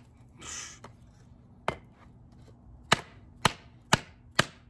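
Work Tuff Gear Nomad fixed-blade field knife chopping a small branch on a wooden stump: five sharp chops, one on its own and then four in quick succession about half a second apart.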